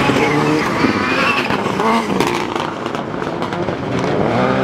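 Autocross race car's engine revving hard on a dirt track, the revs climbing and dropping several times as it shifts gears. Some sharp cracks are mixed in.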